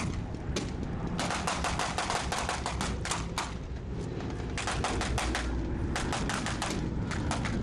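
Blank-firing machine-gun fire in rapid bursts: one long burst starting about a second in, then two more in the second half, with a few single shots before.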